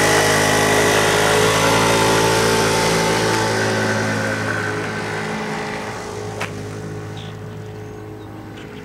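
Small 50cc Wildfire R8 scooter engine pulling away from a standstill under a 230-pound rider. It holds one steady note while the scooter gets up to speed, then fades as the scooter rides off into the distance.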